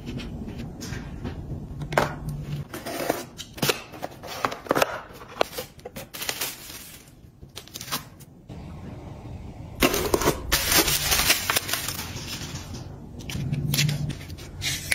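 Hands handling plastic products and packaging on a desk: a run of light taps, clicks and rustles, with a louder stretch of rustling and crinkling about ten seconds in.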